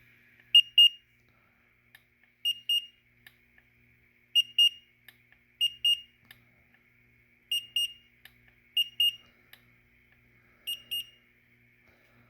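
Electronic alarm on a Danby chest freezer beeping: seven pairs of short, high-pitched beeps, one pair every one to two seconds.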